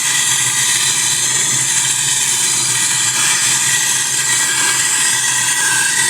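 Handheld gas torch burning with a loud, steady hiss.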